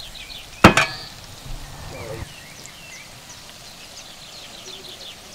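A metal cooking pot set down with a single sharp knock on a wooden board about a second in, then hot oil sizzling quietly around potato chunks frying in the pot.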